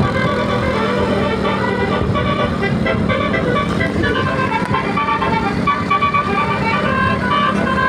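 Telolet basuri multi-tone musical bus horn playing a quick melody of short, changing pitched notes, with a steady low hum underneath.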